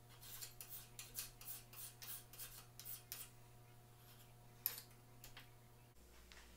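Hand file stroking across a 4140 steel wedge to true up its taper, about three rasping strokes a second, stopping about three seconds in. A single sharp metal tick follows a little later.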